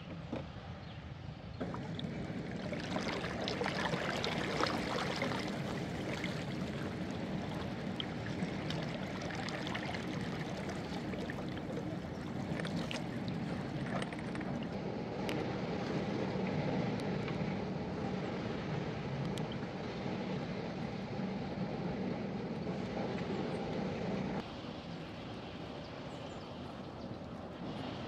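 River water washing and gurgling around the bamboo poles of a raft as it moves across a river, with a few light knocks. A little before the end it drops to a quieter outdoor background.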